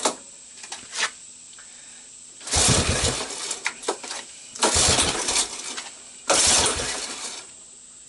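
Single-cylinder four-stroke engine of a 1985 Honda ATC200S being kick-started cold on choke: three attempts, each a second-long burst of the engine turning over and sputtering that dies away without catching.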